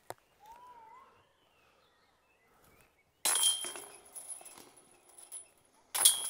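Two putted discs hitting the metal chains of a disc golf basket, about three seconds in and again near the end, each a jangling metallic clatter with a high ring that dies away over about a second.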